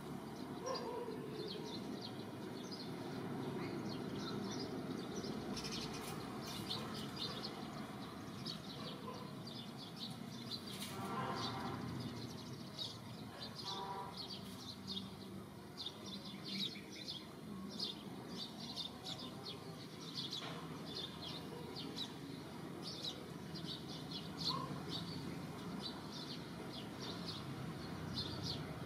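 Small birds chirping in many short, high notes over a steady low background noise, with two brief pitched calls near the middle.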